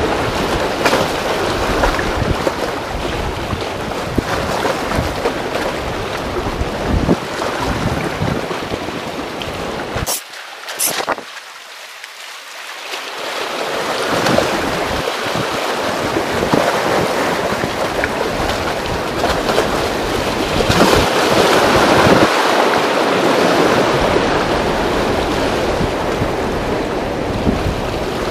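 Wind buffeting the microphone over waves washing against a concrete tetrapod breakwater. About ten seconds in, the wind lets up for a few seconds, leaving the surf and two short clicks, then picks up again.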